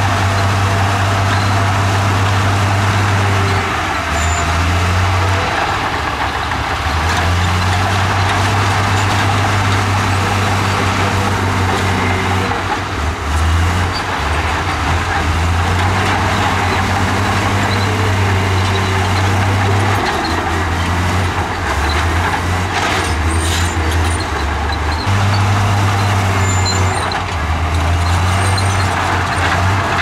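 Komatsu crawler bulldozer's diesel engine running under load as it pushes rock and dirt, its low note dipping and rising several times.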